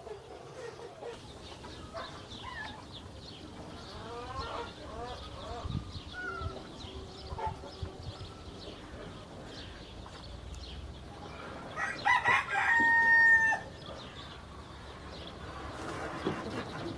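A loud animal call about twelve seconds in, rough at first and then held on one steady note for about a second, over faint scattered chirps.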